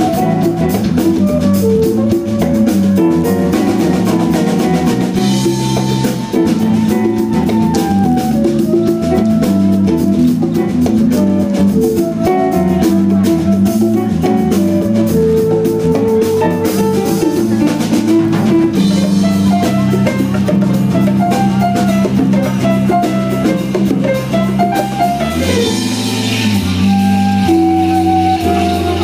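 Live instrumental Brazilian band playing a baião: drum kit and percussion keep a steady groove under a busy melodic line in quick notes, with electric bass and keyboard. Near the end the bass settles onto long held low notes.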